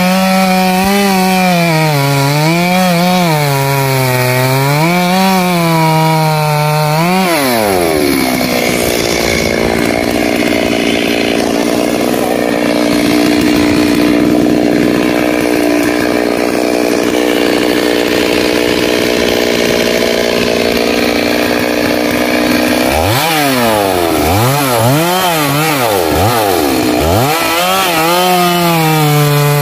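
Stihl MS 382 two-stroke chainsaw cutting through a rain tree's trunk. Its engine pitch dips and recovers as the chain bogs in the wood, holds steady through a long stretch in the middle, and revs up and down several times before it cuts on again near the end.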